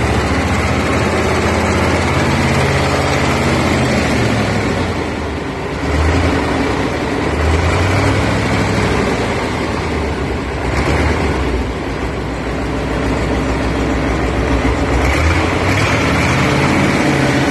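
Mercedes OM442 V8 diesel engine running on a test pallet, its speed rising and falling a few times.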